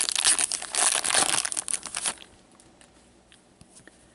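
Trading cards handled by gloved hands: dense rustling and crinkling for about two seconds, then only faint handling sounds.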